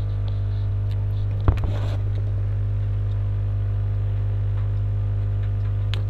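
A steady low electrical hum with faint higher overtones, and a single sharp click about a second and a half in.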